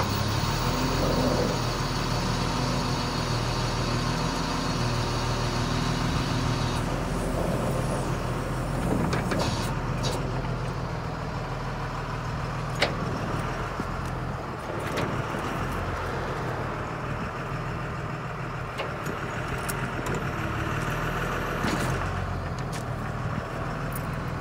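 Drill rig's engine running steadily, with a few sharp clicks and knocks over it. A hiss rides on top at first and stops about seven seconds in.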